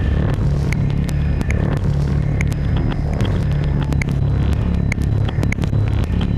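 Modular synthesizer patch playing a dense, rumbling low drone, with sharp clicks and short high blips scattered irregularly over it.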